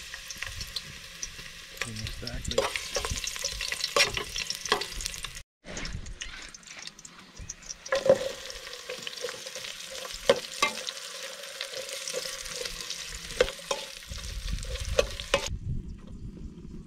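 Chopped garlic, then onion, sizzling in hot oil in an aluminium pot, stirred with a metal spoon that clinks and scrapes against the pot again and again. The sizzle drops out for a moment about five and a half seconds in. Near the end it stops, and a low rumble of wind on the microphone takes over.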